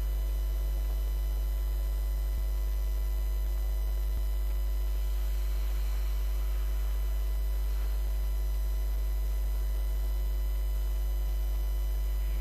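Steady electrical mains hum, a low buzz at one unchanging pitch, with a faint background hiss.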